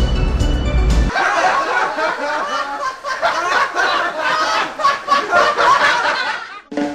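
Music that cuts off about a second in, then snickering laughter that runs for several seconds and stops just before the end.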